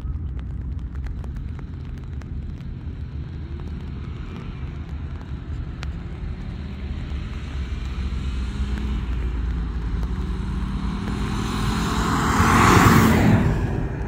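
Car at full throttle on an eighth-mile run, heard approaching as a steady low rumble that grows louder and passes close by near the end, then falls away.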